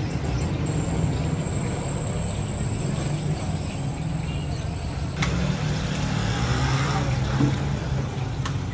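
A steady low rumble, with two sharp clicks, one about five seconds in and one near the end.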